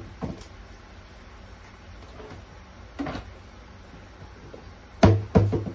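Scattered knocks and clunks of kitchen things being handled: a light knock just after the start, another about three seconds in, and a louder pair of clunks near the end.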